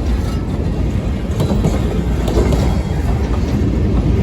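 Freight cars rolling past on the track: a steady low rumble of steel wheels on rail with a few faint clicks over the rail joints, as the last cars of the train go by.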